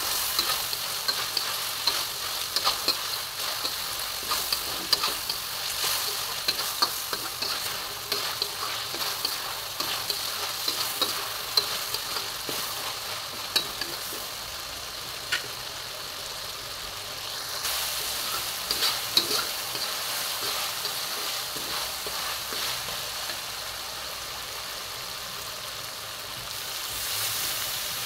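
Frog meat sizzling in hot oil in a steel wok while a metal slotted spatula stirs and scrapes it, with many sharp clicks of metal on the wok. The sizzling swells near the end as water is poured into the wok.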